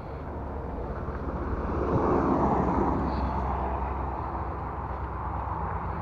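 Road traffic: a car passing on the road, its tyre and engine noise swelling about two seconds in and then slowly fading, over a steady low rumble.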